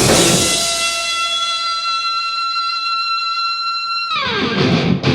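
Heavy metal music: the full band drops out and a distorted electric guitar holds one high note for about four seconds, then slides steeply down in pitch as the drums and rhythm guitars come back in.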